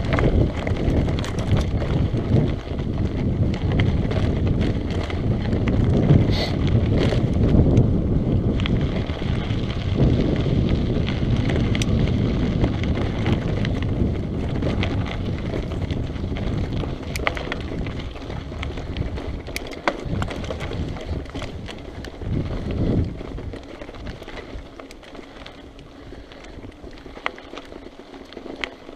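Wind buffeting a GoPro's microphone as a mountain bike descends a rocky singletrack, with its tyres rolling over loose stones and many short sharp clicks and rattles from the bike. The wind rumble eases in the last few seconds.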